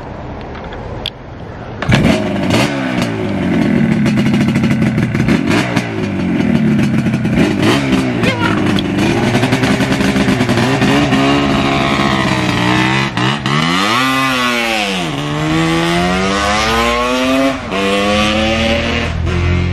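Restored 1980 Yamaha RD400's air-cooled two-stroke parallel twin being kick-started and catching about two seconds in, then blipped up and down in a string of revs. Near the end it pulls away, the pitch climbing in each gear and dropping at each shift.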